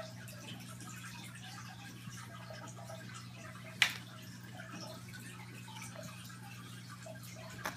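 Aquarium water trickling and dripping over a steady low hum from the tank equipment. A sharp tap on the tank glass sounds about four seconds in, and a fainter one near the end.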